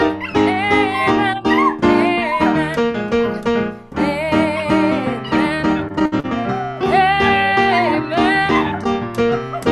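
A song played during a worship service: a singing voice with vibrato over piano or guitar accompaniment.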